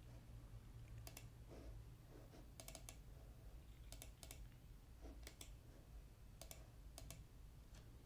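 Faint clicks of a computer mouse and keyboard, about a dozen, several in quick pairs, over a low steady hum.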